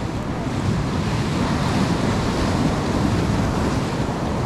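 Ocean surf washing on a rocky shore, swelling as a wave comes in about a second in, with wind rumbling on the microphone.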